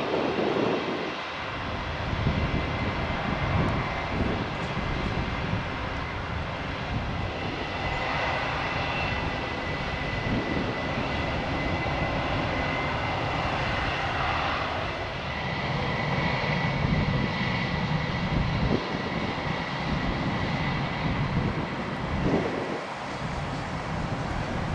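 Airbus A320's jet engines running at low taxi thrust: a steady rumble with a thin high whine over it. The whine grows plainer about a third of the way in.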